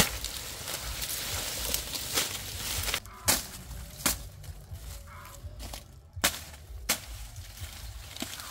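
Dry sugarcane leaves rustling and crackling as a clump of cane is pushed through and worked by hand, with several sharp knocks at irregular intervals.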